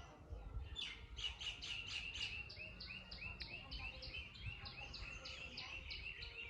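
Birdsong: a bird repeating short high chirps in a fast, even series of about four a second, starting about a second in, over a faint low rumble.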